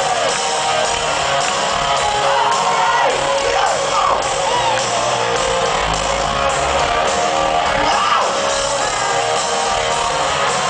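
Live rock band playing in an arena, with electric guitars, drums and singing; a few notes slide up and down in pitch.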